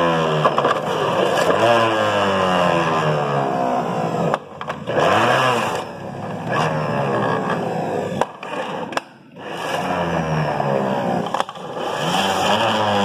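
Electric juicer running as apple pieces are fed through it, its motor pitch sinking again and again and then jumping back up. It briefly goes quieter twice, about four and a half and nine seconds in.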